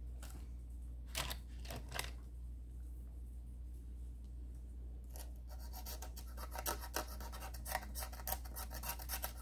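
Scratching at the coating of a scratch-off code card: a few separate strokes at first, then rapid repeated scratching from about halfway through, the coating being hard to scratch off.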